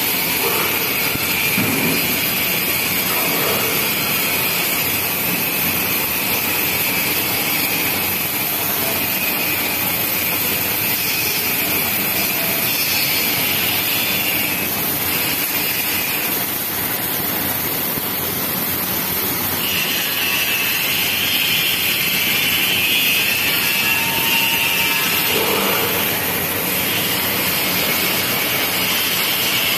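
MIG welding arcs of an automatic rotary welding machine burning steadily on a turning steel shaft: a continuous hissing noise that grows a little sharper about two-thirds of the way in.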